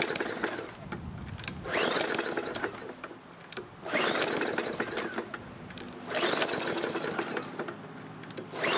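Walk-behind lawn mower's small four-stroke engine being pull-started over and over, about four pulls roughly two seconds apart. Each pull is a rising whir from the recoil starter followed by a second or two of rapid firing that dies away. The engine nearly catches but won't keep running after dish soap was run through it as oil, and the owner suspects a fouled spark plug.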